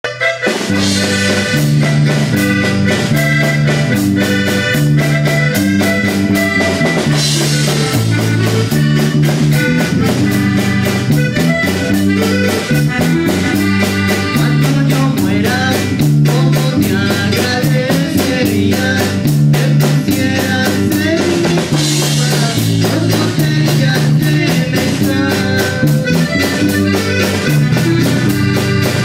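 Live band playing an instrumental on electronic keyboard, with a bass line that repeats in a steady pattern and congas keeping the beat.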